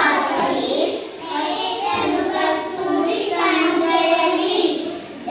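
A group of young children singing a Kannada poem together in unison, in short phrases with brief pauses about a second in and just before the end.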